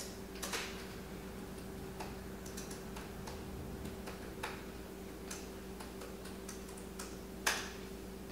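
Laptop keys and trackpad clicking at an irregular pace, with a louder click near the end, over a faint steady hum.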